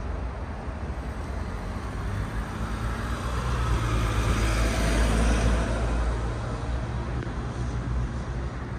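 Street traffic with a steady low rumble; a vehicle passes close by, growing louder to a peak about halfway through and then fading away.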